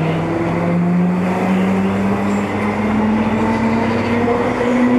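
MTR East Rail line electric train heard from inside the car: the traction motors whine in a smoothly rising pitch as the train accelerates away from a station, over the steady rumble of wheels on track.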